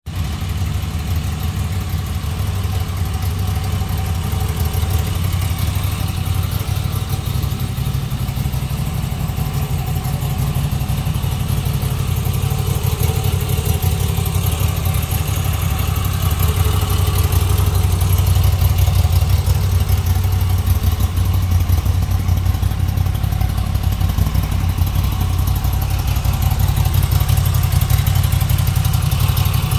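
Moto Guzzi V85 TT's 853 cc air-cooled transverse V-twin idling steadily.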